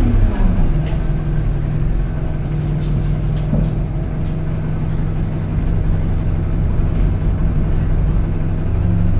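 Inside the cabin of an Alexander Dennis Enviro200 MMC single-deck bus: the engine note falls right at the start and settles into a steady idle hum, with a few light rattling clicks from the bodywork and fittings about three to four seconds in.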